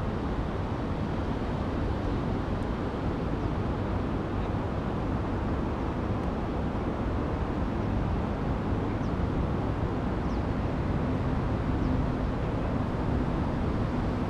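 Steady outdoor background noise: an even low rumble with no distinct events, and a few faint short high chirps near the middle.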